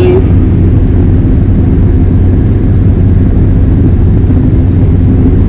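New Holland TR86 combine running steadily while harvesting corn, heard from inside the cab: a loud, constant low drone of engine and machinery.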